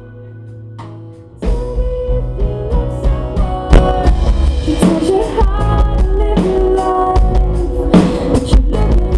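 Live band playing: acoustic guitar, drum kit, bass guitar and a woman singing. Quieter held notes give way about a second and a half in to the full band coming in loudly with drums and vocals.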